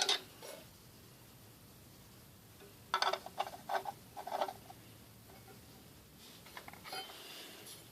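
Compressor parts being handled and set in place on the pump: a few short knocks and clinks about three to four and a half seconds in, then faint ticks near the end.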